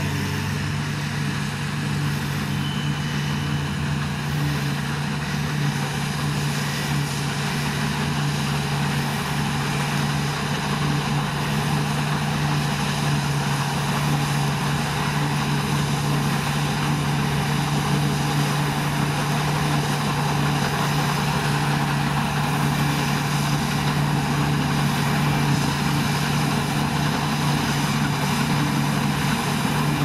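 New Holland CX8080 combine harvester running steadily under load while cutting barley, with a tractor running alongside: a continuous engine drone with a constant low hum.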